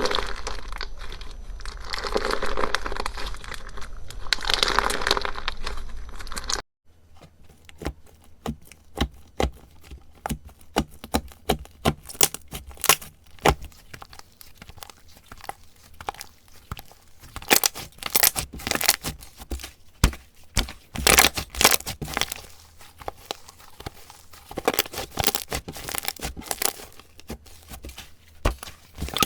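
Slime being squeezed and worked by hand. For the first several seconds it gives a dense crinkling crackle. After an abrupt change there is a long run of sharp, irregular clicks and pops.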